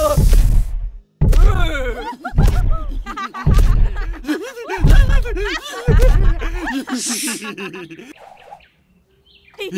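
Cartoon soundtrack: wordless character vocalizations and giggling over music with a heavy low thump about once a second, fading out to near silence shortly before the end.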